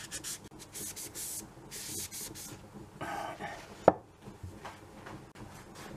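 Damp cloth rubbing in quick irregular strokes along a cold-blued steel gun tube, wiping off the spent bluing gel. There is one sharp knock about four seconds in.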